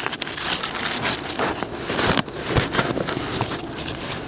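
Nylon compression strap pulled tight around a rolled-up Zempire Monstamat self-inflating camping mattress, with irregular rustling and scraping of strap and mat fabric. The louder scrape comes about two seconds in.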